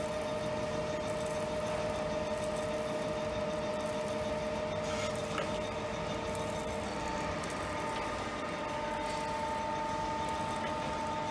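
Jones & Shipman 1311 external cylindrical grinder running under power: a steady machine hum with a few constant pitched tones, and a higher tone joining about two-thirds of the way through.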